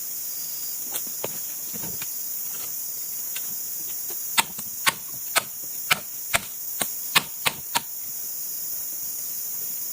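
Steady high-pitched insect chorus of tropical forest, with a run of about nine sharp knocks, a little over two a second, in the middle.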